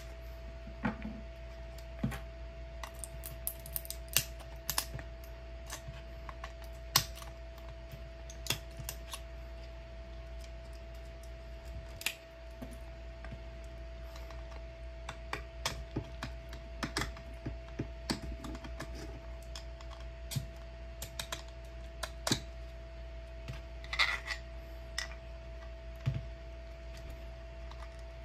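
Small flush cutters and a metal pick snipping, clicking and prying at a 3D-printed plastic goggle frame, trimming off support material. The clicks and snaps come irregularly, several a second at times, over a steady background hum.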